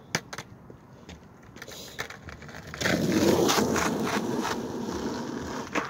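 Skateboard wheels rolling over rough asphalt, getting loud about three seconds in as the board comes close and staying loud for about three seconds. There are a few sharp board clacks at the start and another near the end.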